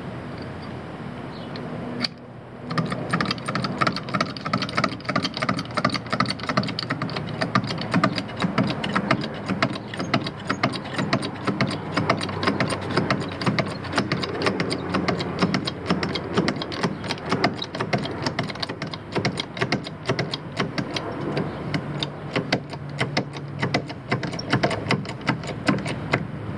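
A hand-worked vehicle jack being run up to lift the vehicle: a fast, steady run of mechanical clicking that starts about two seconds in.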